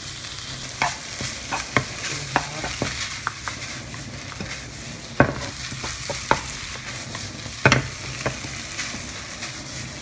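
Minced pork and chili paste sizzling in hot oil in a frying pan as a wooden spatula stirs them, with irregular scrapes and taps of the spatula against the pan; the loudest knocks come about five seconds in and near eight seconds.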